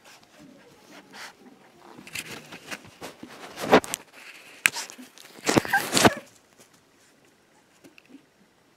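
Australian Labradoodle puppy nosing and pushing against the camera, making rustling and a cluster of loud bumps on the microphone between about two and six seconds in.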